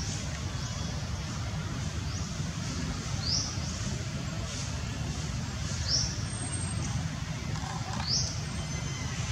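A bird repeating a short, sharp rising chirp every second or two, over a steady low rumble.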